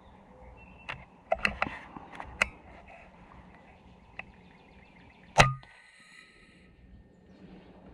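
A single air-rifle shot about five seconds in, a sharp crack with a low thump and a brief ringing tail, as the pellet strikes a cottontail rabbit. Before it come a few short, quieter clicks.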